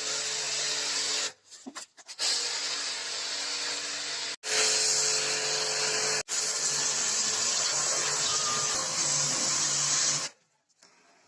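A handheld power tool running steadily with a motor whine. It stops and starts again a few times and cuts off near the end.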